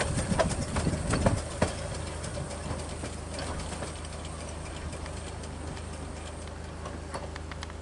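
Small narrow-gauge steam locomotive running past close by, with irregular sharp clicks and knocks over the first second and a half or so, then a steadier, quieter running sound as it draws away.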